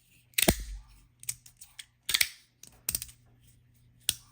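Magnetic fidget slider's plates sliding and snapping into place: a run of sharp clicks, four louder ones about a second apart with lighter ticks between.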